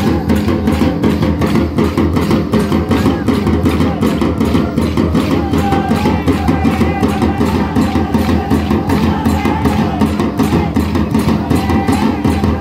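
Music for a Labhana folk stick dance: a fast, steady drum beat with a wavering melody line over it.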